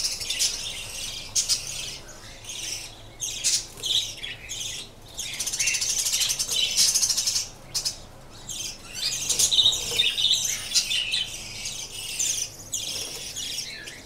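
A flock of caged budgerigars chattering and chirping, a continuous mix of warbles and short high calls, swelling louder about six seconds in and again near ten seconds.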